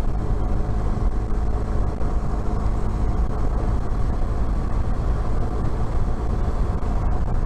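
BMW R1200 GS Adventure's flat-twin engine running at a steady cruise, mixed with wind and road noise.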